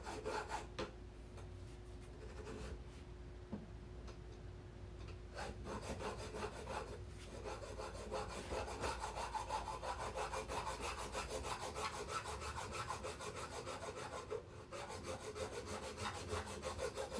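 Hand-held hacksaw blade sawing across a steel threaded rod in quick back-and-forth strokes. A few strokes at the start and a short pause, then steady continuous sawing from about five seconds in.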